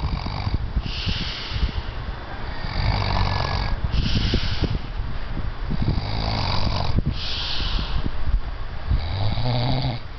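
A person, drunk and asleep, snoring heavily. A rough, rattling snore alternates with a breathy hiss, the cycle repeating about every three seconds, three times over.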